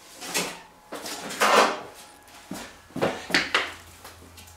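A handful of short clunks and clatters as tools and parts are picked up, moved and set down on a workbench, the loudest about a second and a half in.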